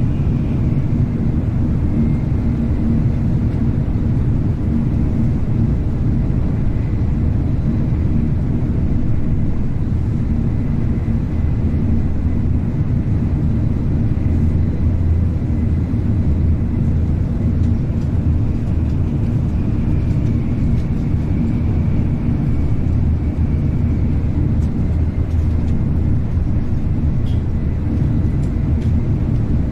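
Shinkansen bullet train running, heard from inside the passenger cabin: a steady low rumble with a faint high whine that fades in and out.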